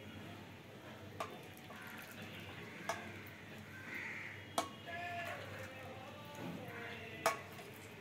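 Hot milky tea poured from a steel pan through a steel tea strainer into a cup, a soft steady pouring broken by a few sharp metal clinks of the strainer against the rims.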